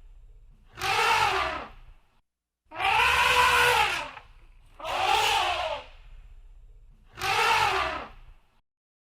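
Elephant trumpeting: four loud, rising-then-falling calls of about a second each, one after another, over a low rumbling background.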